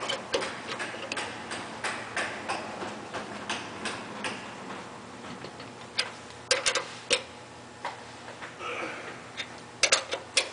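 Ratcheting wrench clicking in short runs as it turns the hex of a C845 hand rivet-nut tool, drawing up and setting a rivnut. There are several clicks a second, with a few louder, sharper clicks about six seconds in and again near the end.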